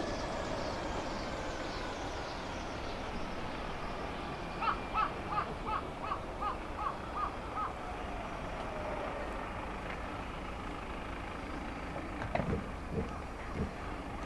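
Bell 427 twin-turboshaft helicopter winding down after engine shutdown, its whine falling slowly in pitch. About five seconds in, a bird gives a quick run of about nine calls, and a few low thumps come near the end.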